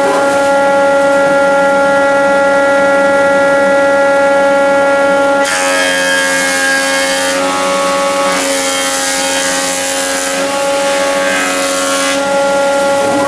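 Woodworking planer running with a steady whine; from about five seconds in, a board is fed across the cutter block for about six seconds, adding a rough cutting noise, then the machine whines on by itself. The cut is a flattening pass taking the high spots off a twisted board.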